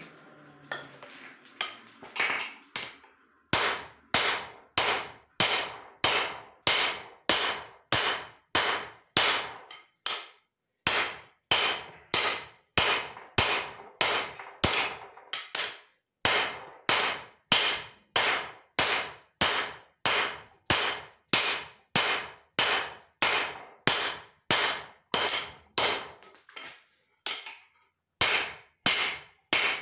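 Hand hammer blows on leaf-spring steel on an anvil during hand forging, a steady rhythm of about one and a half strikes a second, each ringing briefly. The first few blows are lighter, and the rhythm stops for a moment a few times.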